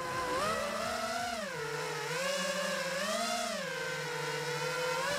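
Wizard X220 FPV quadcopter's motors and propellers whining, heard from its onboard camera, the pitch rising and falling again and again as the throttle changes.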